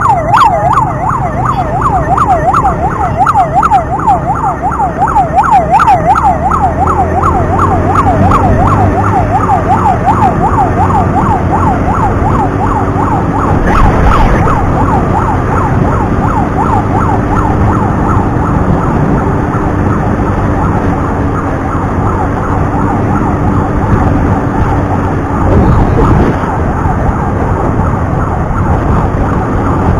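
Ambulance siren on a fast yelp, its pitch rising and falling about three times a second over engine and road noise. The siren grows fainter in the second half.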